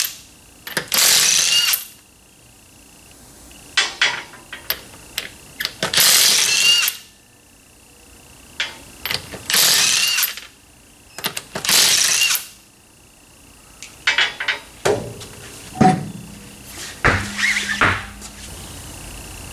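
Impact wrench run in short bursts of about a second each, spinning lug nuts off a wheel, then a run of shorter bursts and knocks near the end.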